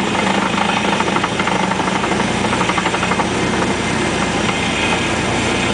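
Cessna 172's piston engine running steadily, heard from inside the cabin along with airframe and wind noise as the plane rolls down the runway.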